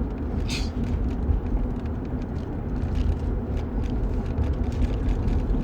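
Steady low rumble of a running vehicle, with a faint steady hum.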